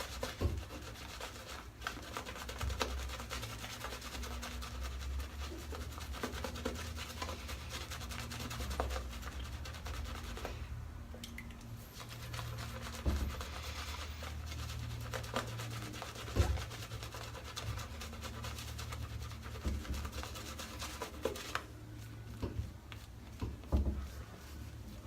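Wolf Whiskers custom shaving brush scrubbing soap lather, a steady scratchy rubbing of the bristles that pauses briefly about ten seconds in and turns quieter near the end.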